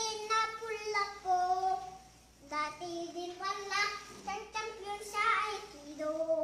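A child singing a Tagalog song alone, without accompaniment, in a high voice with long held notes broken into phrases and a short pause about two seconds in.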